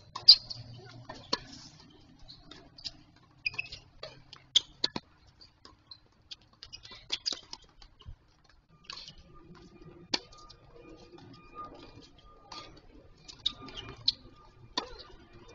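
Tennis rally on a hard court: sharp pops of racket strikes on the ball and its bounces, irregularly spaced, the loudest just after the start.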